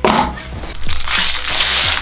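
Background music with a steady low beat. A sharp noise hits at the start, and a loud rushing hiss, like rustling or crushing, fills the second half.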